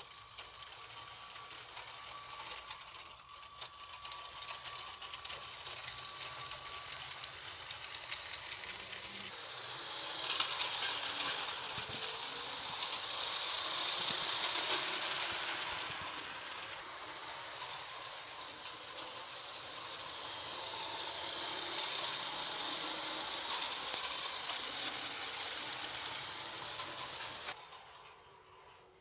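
Motorised Lego model train, a BR 218 diesel locomotive rebuilt from set 60098, running along plastic Lego track: its electric motor and wheels make a steady, mostly high-pitched noise with faint clicks. The noise drops off sharply near the end.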